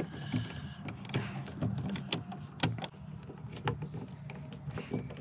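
Power drill driving screws to mount a keyless RV lock handle on a cargo door: a steady motor whir with scattered sharp clicks.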